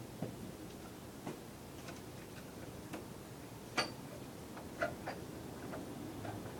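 A few faint, short clicks and ticks at irregular intervals, the sharpest a little before the middle, over a low steady hum.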